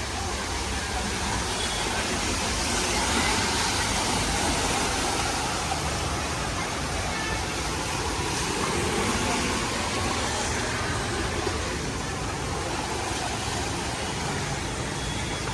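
Heavy rain pouring down in a steady rush, with road traffic passing through floodwater.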